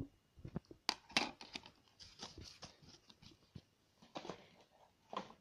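Hands handling a CD album's packaging: a run of irregular clicks, taps and rustles.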